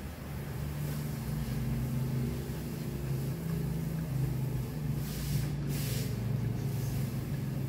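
A low, steady mechanical drone with a slightly wavering pitch, like an engine running, with a brief burst of hiss-like noise about five seconds in.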